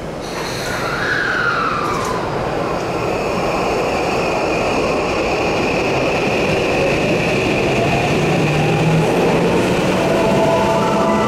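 Tokyo Metro 9000 series train with a Mitsubishi full-SiC MOSFET VVVF inverter pulling away from the platform, getting louder over the first second or so. Its inverter and motor whine gives a falling tone about a second in, then a tone that slowly rises as the train gathers speed, over steady running noise.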